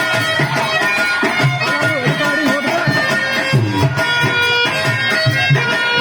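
Indian devotional folk music: dholak drum strokes keeping a steady beat under a reedy instrument holding sustained melody notes.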